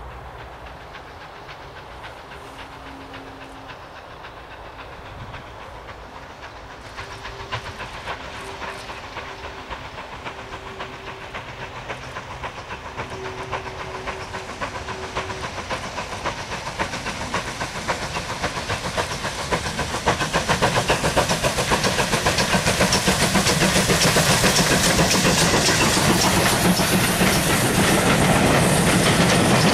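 GWR 'Modified Hall' 4-6-0 steam locomotive working a passenger train, its exhaust beats growing steadily louder as it approaches and passes. In the second half the coaches' wheels clatter over the rail joints, and this is loudest near the end.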